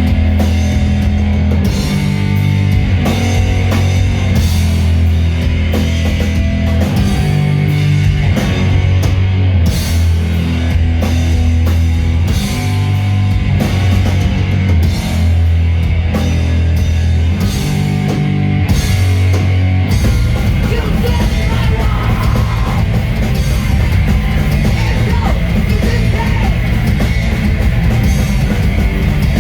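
Loud heavy rock music with a pounding drum kit and held bass notes; about two-thirds of the way through, the song moves into a denser, busier section.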